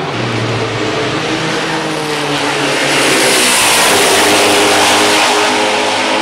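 Matech Ford GT GT1 race car's 5.5-litre V8 at full throttle, passing by on track. The engine grows louder about halfway through as the car comes past.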